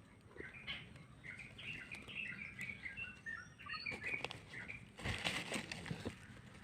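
Small birds chirping rapidly in a busy cluster of short high notes. About five seconds in, a burst of rustling and scraping noise takes over.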